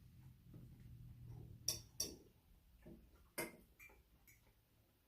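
Eating utensils clicking lightly against a plate, four or five short clicks in two pairs and a last faint one, over a faint low hum that fades out.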